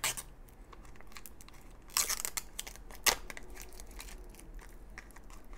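Crinkling and tearing of a thin printed plastic wrapper being peeled off a Toy Mini Brands capsule, with scattered sharp crackles, a louder stretch of crackling about two seconds in and a sharp snap about a second later.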